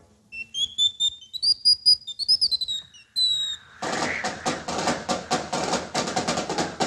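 Cartoon soundtrack: a run of high whistle-like notes sliding between pitches. About four seconds in, fast rhythmic orchestral music with many quick, sharp ticks takes over.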